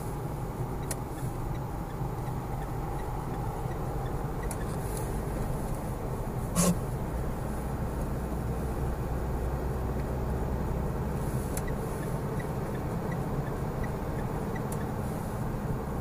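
Steady engine and road noise inside a moving car's cabin, with a single sharp knock about six and a half seconds in.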